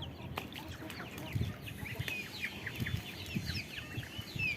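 A flock of young poultry peeping in many short, overlapping, falling chirps, with soft footsteps underneath.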